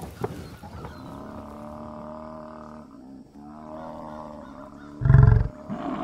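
African (Cape) buffalo calling: drawn-out low moans, then one short, loud, deep grunt about five seconds in.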